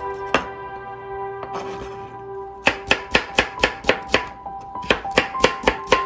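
Chef's knife chopping a cucumber into strips on a plastic cutting board: a single knock early, then an even run of quick chops, about four a second, from a little before halfway.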